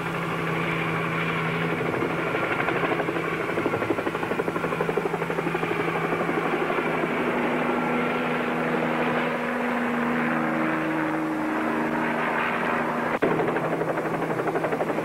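Bell 47 helicopter in flight, its engine and rotor making a steady rapid chop. There is a single sharp click about thirteen seconds in.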